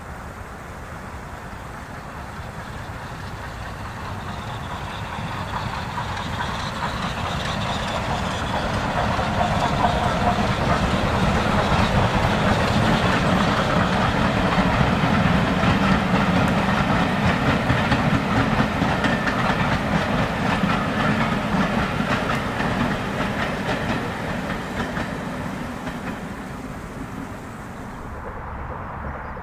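Steam-hauled passenger train passing across the valley, its running sound growing louder for about ten seconds, staying loud through the middle, then fading away. It is cut short near the end.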